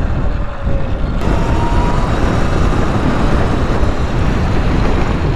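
Wind buffeting the microphone of a rider on a moving electric bike, a steady low rush, with a faint whine about a second in.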